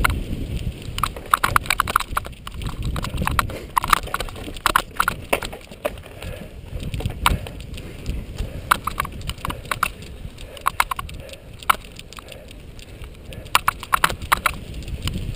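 Cyclocross bike ridden fast over bumpy dirt: irregular sharp clacks and rattles from the bike and camera mount jolting over the ground, over a steady low rumble of tyres and wind on the microphone.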